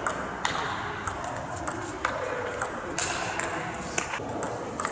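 Table tennis ball clicking sharply and irregularly: hits off bats and bounces on the table and floor, about a dozen over a few seconds, with a low murmur of voices behind.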